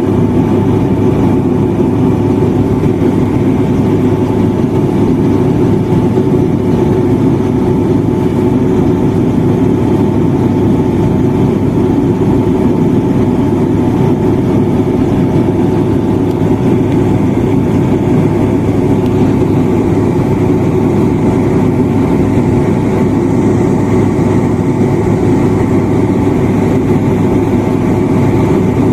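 Turboprop airliner's engines and propellers droning steadily, heard inside the passenger cabin during the descent to land. It is a loud, even drone with a low hum and a few held tones over a rushing noise.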